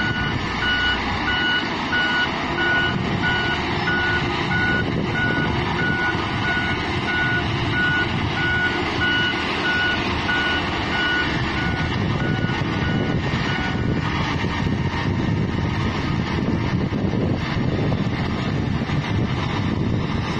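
Reversing alarm on heavy road-building machinery beeping steadily, about two beeps a second, stopping about 14 seconds in, over the continuous rumble of diesel machine engines.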